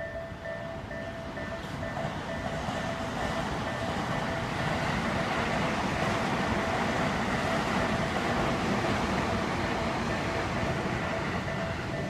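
A Japanese railway crossing's warning bell ringing in a steady repeating two-tone beat. A passing train's rumble swells over it from about two seconds in, is loudest in the middle, drowns the bell for a while, and dies away near the end.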